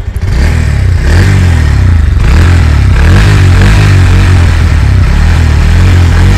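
2024 Bajaj Pulsar NS160's single-cylinder engine running and being revved through its underbelly exhaust. The pitch rises and falls several times, with a bassy thump in the note.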